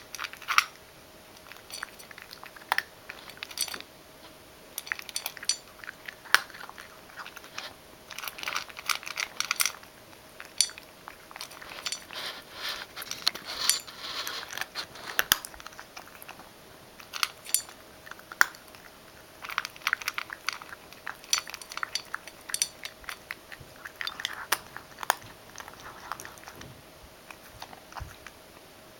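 Ragdoll cat crunching dry kibble from a stainless steel bowl, in irregular bursts of crunches with sharp clinks against the metal bowl.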